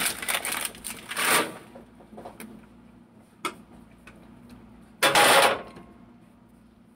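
Cookware being handled: short scraping and clattering noises from pots and utensils, the loudest about five seconds in, over a low steady hum.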